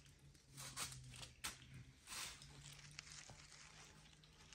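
Faint handling noises from work on the underside of a VR6 engine block: a few short scrapes and one sharp knock in the first two seconds or so, over a low steady hum.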